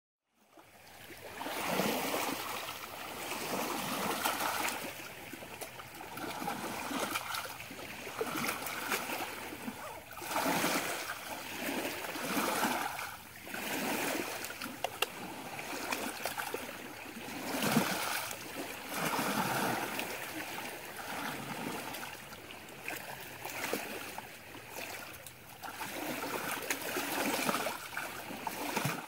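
Small waves lapping and washing on the lakeshore, a steady watery hiss that swells and falls back every couple of seconds.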